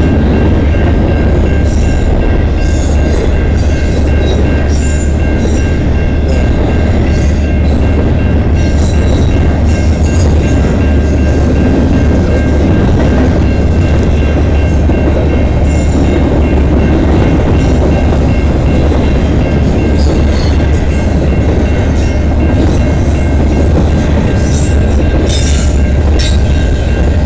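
Double-stack intermodal freight cars rolling steadily past a grade crossing with a loud continuous rumble and clatter of wheels on rail, and a few brief high squeals from the wheels. A steady ringing tone from the crossing bell runs under it.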